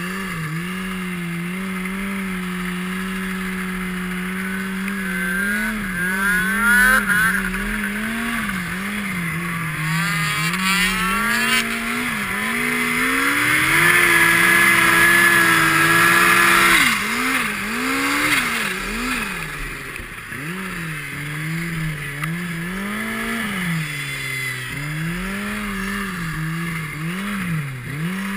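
Turbocharged snowmobile engine under throttle, its pitch rising and falling over and over as the rider works the throttle. A rising whine comes in about six and ten seconds in, and a high whine holds through the loudest stretch in the middle before the revs drop off.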